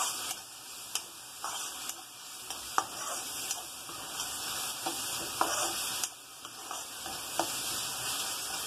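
Chopped onions, green chillies and curry leaves sizzling in hot oil in a kadai, stirred with a metal spatula that clicks and scrapes against the pan every second or so.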